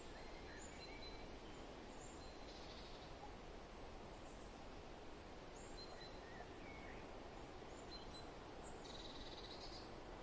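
Soft, steady wind ambience with scattered short bird chirps, and a brief buzzy call twice.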